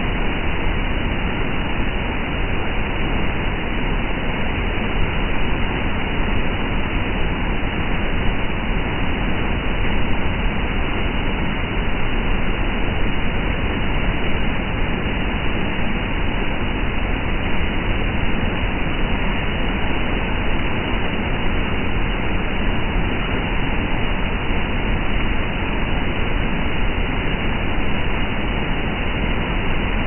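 Waterfall in flood after a night of heavy rain: a loud, steady rush of falling water.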